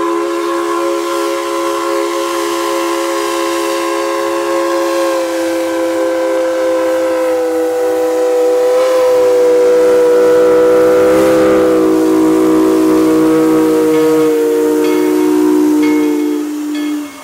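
Steam locomotive's chime whistle blowing one long blast, a steady chord of several notes. It grows louder about halfway, then sags slightly in pitch and cuts off near the end.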